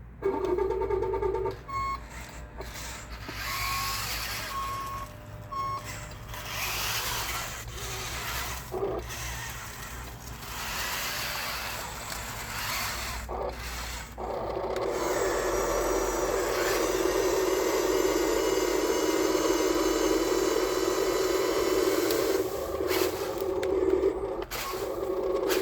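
Huina 1554 RC bulldozer's electric drive motors whining as it works wet sand. Near the start come a few short high beeps and a stretch of scraping. About halfway through the whine turns loud and steady and holds.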